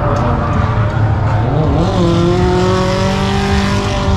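A car engine revving, rising in pitch about halfway through and then held at a steady high rev.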